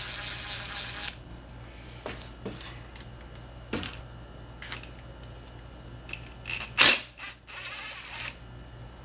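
Socket wrench and metal parts clicking and clacking in the engine bay as the EGR valve's mounting nuts are worked off: a few sharp clicks with one loud clack near the middle, and two short rasping bursts, one at the start and one later on.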